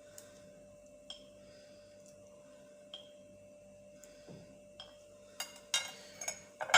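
Light clicks and clinks of kitchenware against a drinking glass, a few spaced about a second apart, then a run of louder clinks and rattles near the end, over a faint steady hum.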